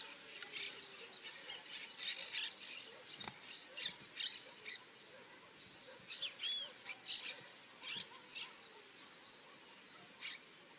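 Birds chirping: a string of short, high, irregular calls, thinning out near the end.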